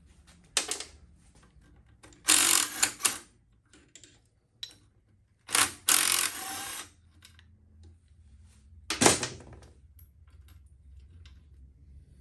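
Metal clanks and rattles from a Honda XL70 minibike's handlebars and their cables as they are wiggled and worked loose from the fork top: several clattering bursts with a short scraping stretch around six seconds, the loudest a sharp knock about nine seconds in.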